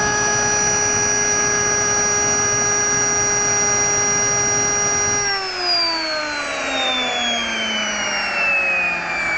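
Jet engine running steadily with a whine of several fixed tones, then shut down about five seconds in: all of its tones fall steadily together as the turbine spools down.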